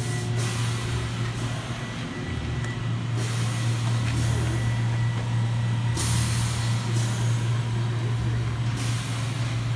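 Steady low machine hum with a thin high whine from shop machinery under power. A hiss cuts in and out every second or two.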